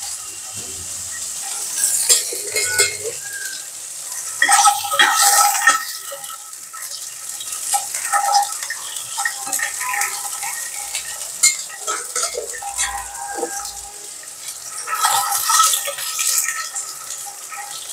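A metal spatula stirring and scraping inside an enamel cooking pot of onions frying in oil, in bursts every few seconds with clinks against the rim, over a steady sizzle.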